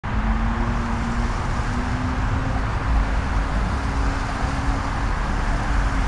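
Watercraft engine running steadily, a droning tone that shifts slightly in pitch about a second in, over a strong low rumble.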